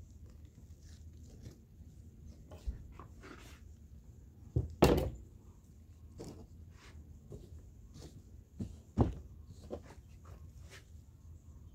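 Handling sounds of filleting a large rainbow trout on a towel-covered table: soft knife scrapes and light taps, with two thuds, about five seconds in and again near nine seconds, as the fish and knife are moved on the table.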